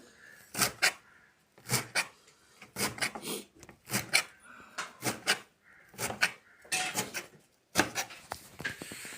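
Knife chopping fresh coriander finely on a wooden board: short strokes in small clusters, about one cluster a second.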